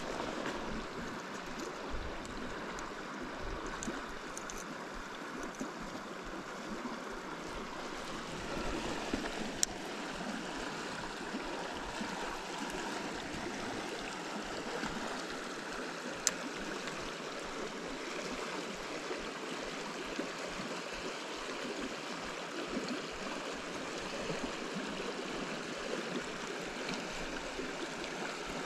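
Steady flow of the South Platte River running over rocks. Two short sharp clicks break through, about ten and sixteen seconds in.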